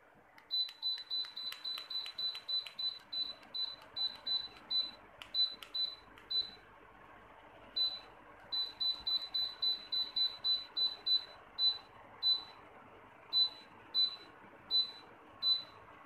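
Khind tower fan beeping in answer to remote-control button presses: fast runs of short, high, single-pitched beeps about three a second, stepping its timer setting. A pause about six seconds in, then another fast run and slower single beeps near the end.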